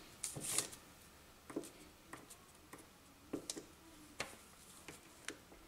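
Light, irregular clicks and taps, about ten in all, as AA batteries and multimeter test probes are picked up, set down and handled on a paper-covered bench.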